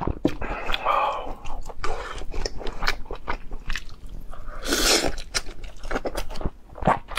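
Close-miked eating: a person biting and chewing meat off a braised bone, with many short wet clicks of the mouth and a louder burst about five seconds in.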